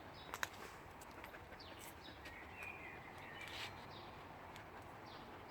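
Outdoor park ambience: small birds chirping now and then over a steady background hum, with two sharp clicks about half a second in.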